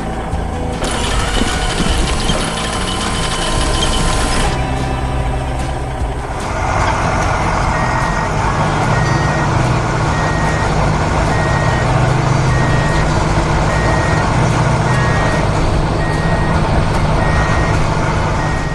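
Truck engine running with a reversing alarm beeping at an even pace, about one to two beeps a second, starting about eight seconds in.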